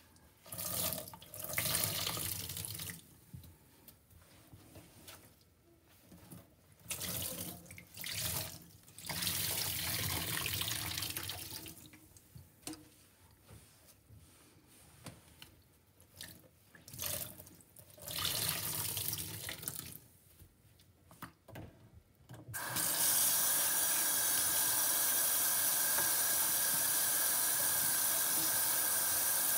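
Soaked foam sponges squeezed and wrung by hand in a stainless steel sink, liquid squelching and splashing out in irregular bursts. After about twenty seconds a faucet is turned on and water runs steadily onto the sponges.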